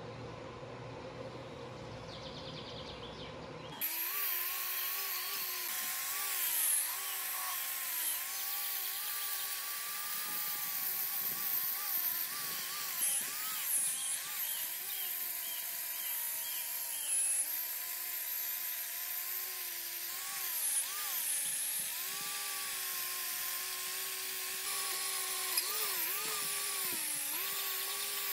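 Angle grinder with a wire brush scrubbing rust off a pump housing: a steady motor whine over a hissing scrub, its pitch sagging each time the brush is pressed into the metal. It starts suddenly about four seconds in, after a low rumbling background.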